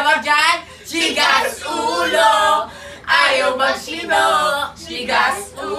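Several young male voices singing together without instruments, in short loud phrases with brief breaks between them.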